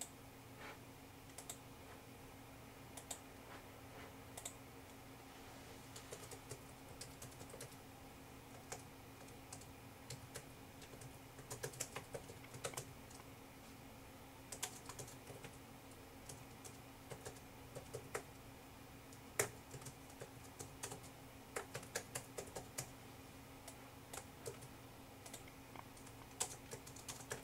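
Faint typing on a computer keyboard, with irregular runs of key clicks and pauses between them, over a steady low hum.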